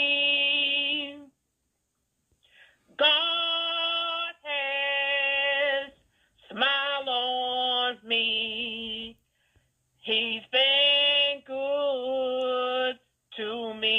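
A solo voice singing unaccompanied: long held notes with a slight waver, sung in short phrases with brief silent gaps between them.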